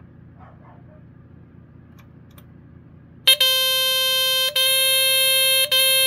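Ademco 1689 smoke alarm's squealer horn, set off with the test button. It sounds about three seconds in: one loud, shrill tone, broken by two split-second gaps that mark its really slow pulse.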